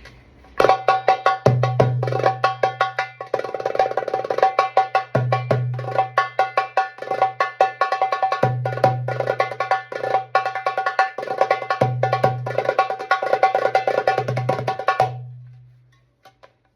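Star Percussion Egyptian darbuka played in a fast rhythm: dense rolls of sharp, ringing strokes, with a deep dum note about every three and a half seconds. The playing dies away about fifteen seconds in, then starts again right at the end.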